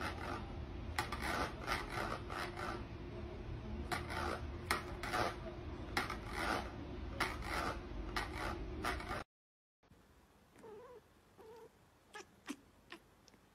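A cat scratching and scraping its claws on the inside of a plastic bucket: a quick, uneven run of scrapes for about nine seconds that cuts off suddenly. After it, a few faint short cat mews.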